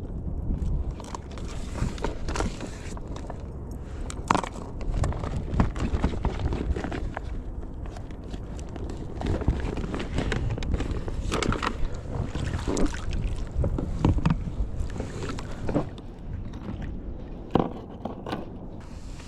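Wind rumbling on the microphone on a fishing kayak, with water sloshing and frequent irregular knocks and clicks of gear being handled against the hull.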